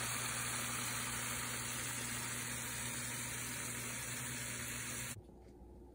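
Chicken pieces in a thick chilli sauce sizzling in a frying pan: a steady hiss over a low hum, cutting off suddenly about five seconds in.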